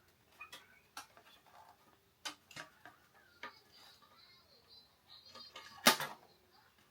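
Scattered small clicks and taps of plastic and metal as an Xbox Series S is being taken apart by hand, with one sharper knock near the end.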